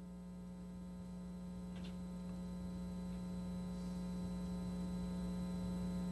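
Steady electrical mains hum with a stack of even overtones, slowly growing a little louder; a faint click about two seconds in.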